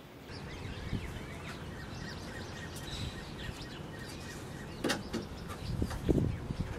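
Birds chirping over outdoor background noise; about five seconds in, a sharp knock and then dull thumps as bare feet climb onto terracotta clay roof tiles.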